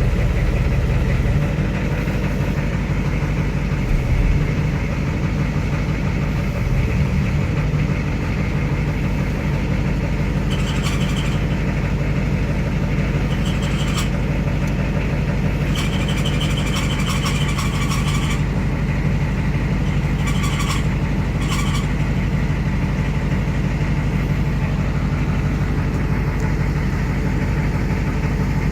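Ford IDI diesel V8 truck running steadily, with a high-pitched squeal from the ZF5 five-speed transmission that comes and goes in several bouts of one to two seconds. The squeal is the rear countershaft bearing race spinning loose in the transmission case.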